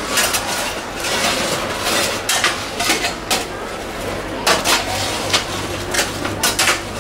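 Roasting chestnuts tumbling and rattling in a stainless-steel roasting tray as a metal shovel stirs them, with irregular sharp knocks and scrapes of metal on metal.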